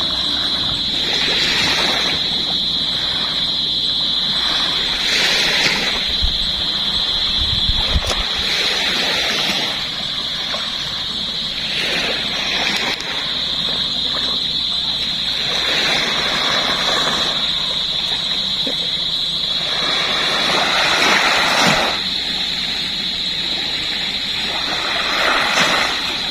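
Sea waves breaking and washing up the beach, swelling every few seconds, over a steady high-pitched whine.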